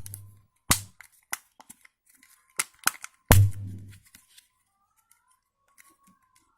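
Plastic back housing of a Samsung mobile phone being pressed shut: a handful of sharp clicks and snaps over the first three to four seconds, two of them with a duller knock.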